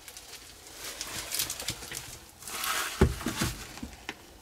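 Handling noise: rustling with a few knocks, the loudest a thump about three seconds in.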